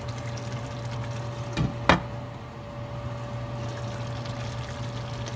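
Chicken afritada simmering in tomato sauce in a stainless steel pan, a faint bubbling hiss over a steady low electrical hum. A sharp knock sounds about two seconds in, with a softer one just before it.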